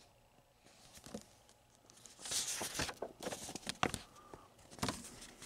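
Handling noise: rustling and several sharp clicks and taps, starting about two seconds in and dying down near the end.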